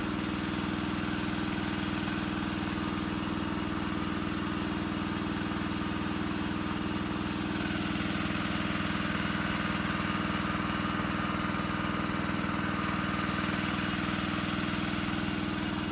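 A small engine idling steadily, with a faint higher whine joining about eight seconds in.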